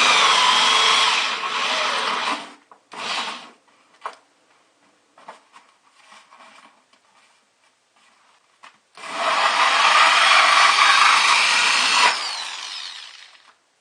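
Power drill with a hole saw cutting a hole through a bucket cooler's liner, in bursts: a run of a couple of seconds, a short burst about three seconds in, and a longer run of about four seconds starting around nine seconds in, with small scrapes and knocks between.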